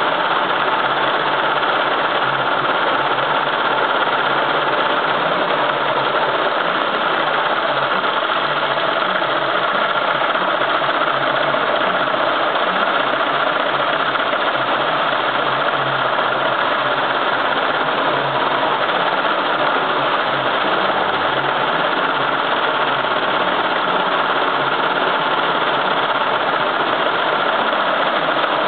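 Fifteen-needle commercial embroidery machine running steadily, stitching lettering onto a cap held in a cap frame.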